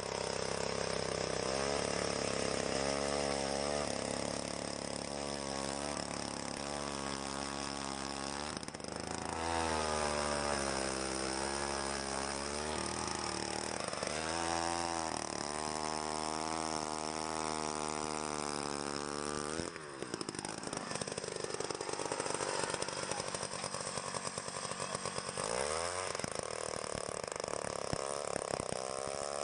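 Small engine running, its pitch repeatedly rising and falling. About twenty seconds in the pitch drops sharply, and about five seconds later it climbs again.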